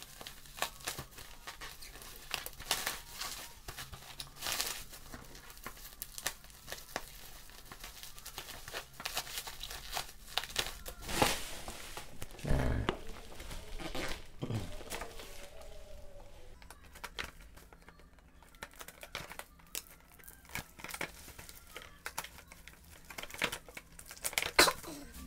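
Bubble wrap and plastic packaging crinkling and tearing as a parcel is cut open with scissors and unwrapped, in an irregular run of crackles.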